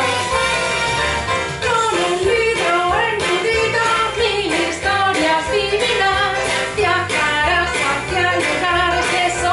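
Upbeat children's pop song with a steady beat and a female voice singing the melody.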